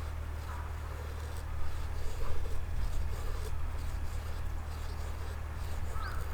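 Light, irregular scraping and handling noises over a steady low hum, getting busier after about a second and a half; near the end a crow starts cawing.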